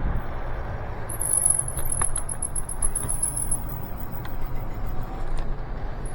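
Cable disc brakes on a Nanrobot Lightning 2.0 electric scooter squealing with a thin, very high-pitched note for about two and a half seconds from about a second in, and again briefly at the end. Under it is the steady rumble of the ride. The brakes are really loud even after the calipers were adjusted, which the rider suspects may be the pads.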